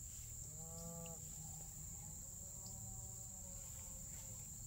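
Faint mooing of distant cattle: a short moo about half a second in and a longer, weaker one from about two seconds, over a steady high drone of insects in the grass.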